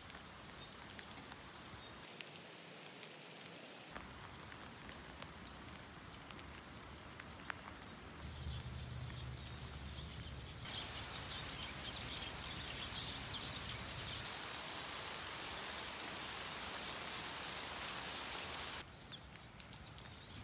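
Rain falling steadily, with many small drop impacts. It grows louder for several seconds past the middle, and the sound changes abruptly at several points.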